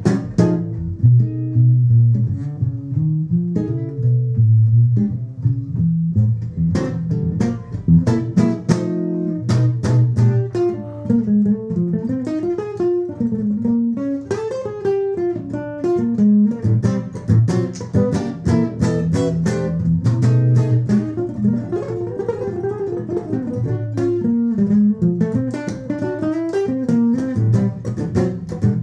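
Archtop hollow-body guitar played solo in a samba-like rhythm: a moving bass line under plucked chords and melody notes.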